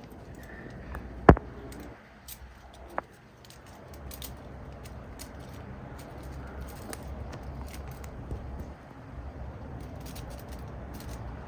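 A single sharp knock about a second in, a fainter one at about three seconds, then scattered light ticks and clicks over a low steady rumble.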